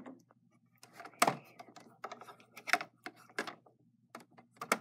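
Plastic Littlest Pet Shop figures and playset being handled by hand: a string of light clicks and taps, the loudest about a second in and again near the end, over a faint low hum.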